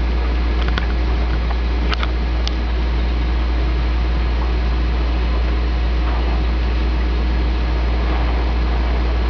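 Oxyhydrogen (HHO) torch flame hissing steadily over a constant low hum, with a few faint ticks about a second and two seconds in.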